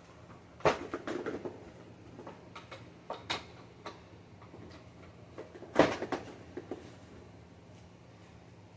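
Knocks and clatter as a vacuum cleaner is handled and moved, in a few scattered clusters, the loudest a little under a second in and near six seconds in.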